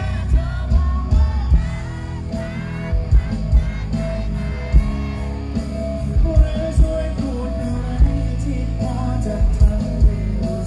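A man singing into a microphone with music behind him, loud through a concert's stage speakers.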